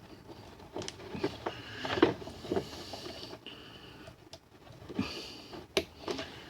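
Irregular light clicks, knocks and rustling of close-up handling, as the camera is set down and small parts are handled.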